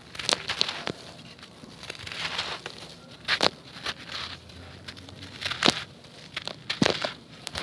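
Hands crushing a porous black concrete disc and crumbling it over a tub of gravel: a handful of sharp, crispy crunches as pieces break, with a gritty hiss of crumbs and sand trickling through the fingers in between.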